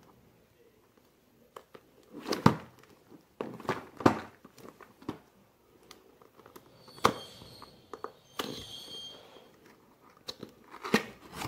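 A box and its packaging being opened by hand: plastic crinkling and scattered sharp knocks and crackles. There is a short squeaky tearing sound about seven seconds in and again around eight and a half seconds.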